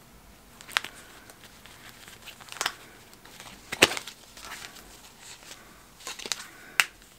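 Paper card and packaging of a pair of socks handled and opened: soft rustling with a handful of sharp clicks and snaps, the loudest about four seconds in.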